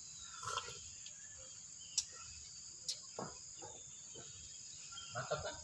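Light metallic clicks and knocks from engine parts being handled on an open cylinder head, two sharp ones about a second apart near the middle, over a faint steady high-pitched background trill.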